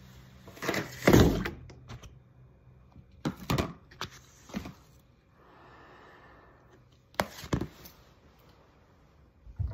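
A series of sharp thumps and knocks as the phone is handled close to its microphone and a plate of food is set down on the table; the loudest comes about a second in, with a soft rustle between them.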